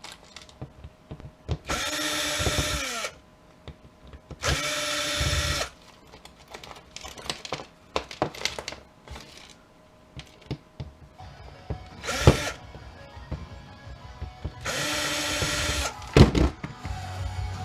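Power drill-driver running in three short bursts of about a second each, removing screws from the conveyor's metal frame. Between bursts there is clinking and rattling of small metal parts, and two sharp metal knocks near the end.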